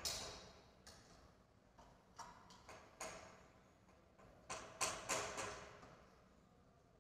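A 10 m air pistol handled at the bench, giving a string of sharp clicks and clacks, about a dozen, with the loudest cluster a little past the middle.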